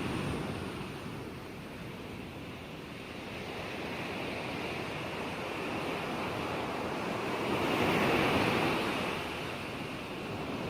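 Ocean waves washing on a shore: a continuous hiss of surf with one wave swelling louder about eight seconds in and then falling back.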